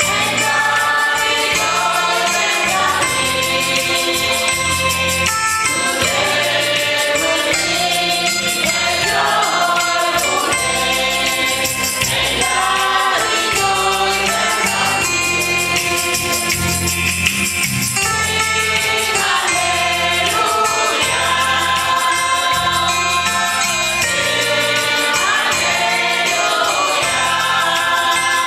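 A church congregation singing a hymn together as a choir.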